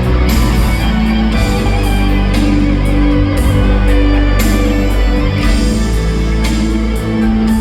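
Pop-rock band music with guitar and a steady bass, an instrumental intro with no vocals.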